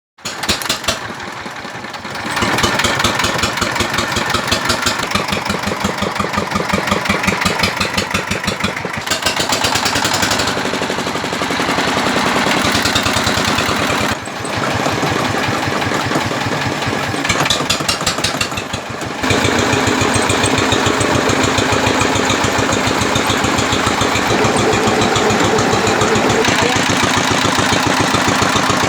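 Rice milling machine running with its engine, a steady mechanical drone with a fast, even knock. The sound changes abruptly about two seconds in and again several times later, as between clips of the machine at different stages.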